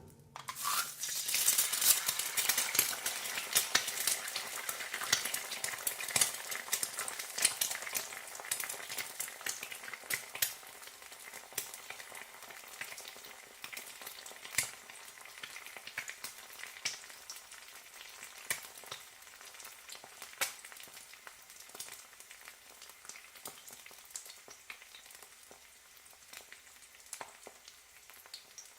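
Egg frying in a hot pan: a steady sizzle dotted with sharp pops and crackles. It is loudest in the first several seconds and slowly dies down as it goes on.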